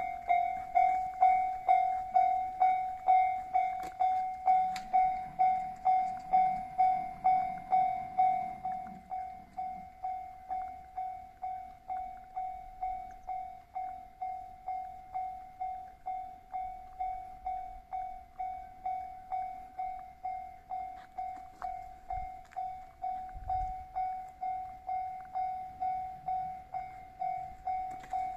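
Japanese railway level-crossing alarm ringing, an electronic ding repeating about twice a second to warn of an approaching train. It drops somewhat in level about nine seconds in.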